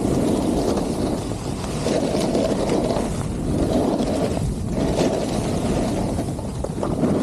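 Wind rushing over the microphone of a camera carried by a skier on the move, with the hiss and scrape of skis on snow. The noise swells and fades every second or so.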